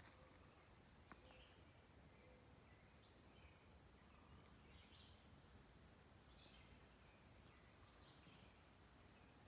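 Near silence: faint outdoor ambience with a bird giving short, soft chirps every second or two.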